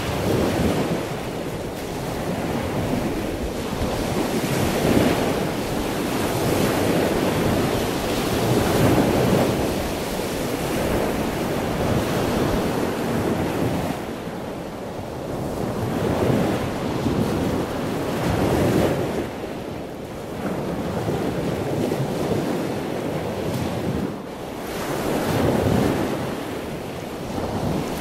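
Sea surf: waves breaking and washing up the shore, swelling and ebbing in surges every few seconds.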